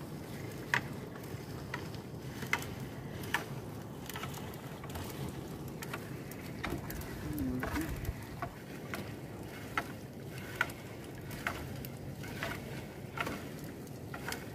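Sinking gill net being hauled by hand into a small boat: light knocks and clicks roughly once a second over a steady low hum and water noise.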